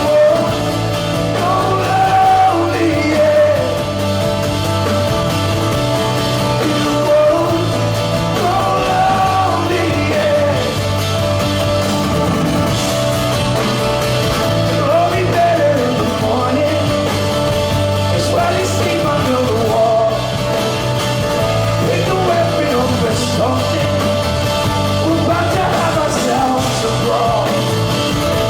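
Live band playing a slow rock song with singing, recorded from the audience.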